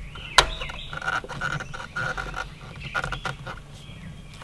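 Distributor housing being worked back into the cylinder head and turned to line it up: a sharp metallic click about half a second in, then knocks and scraping with short squeaks in between.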